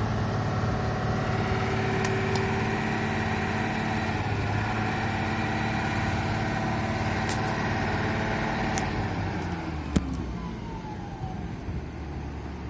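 Heavy diesel machine engine running steadily, then easing off about nine seconds in as its pitch slides down, with a sharp click near ten seconds.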